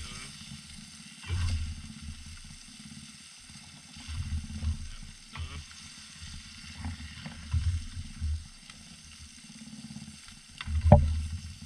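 Striped bass fillets sizzling in a metal toaster-oven pan on a portable stove, with a spatula scraping and tapping in the pan now and then and a sharper clank near the end. Low rumbles come and go under the sizzle.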